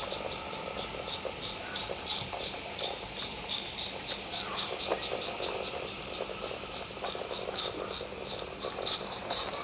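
16mm-scale live steam locomotive chuffing steadily as it passes with a freight train, its exhaust beats in a quick, even rhythm, over the light clatter of the wagons' wheels on the track.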